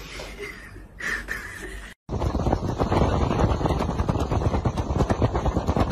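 Strong wind buffeting a phone's microphone: a loud, gusting rumble that starts suddenly about two seconds in, after a short quieter stretch with a faint voice.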